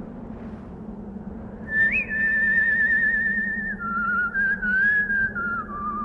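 A slow whistled tune with a wide, wavering vibrato starts about two seconds in. It holds one note, then steps down through several lower notes. Under it runs a steady rushing noise like wind.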